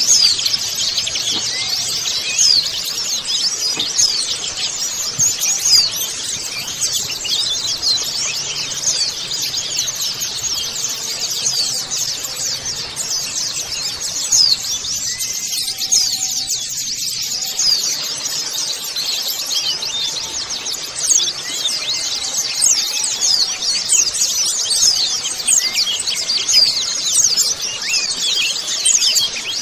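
A colony of white-eyes (pleci) twittering together in a dense, continuous chorus of quick, high chirps. This is the flock chatter ('ombyokan') played to set caged white-eyes singing.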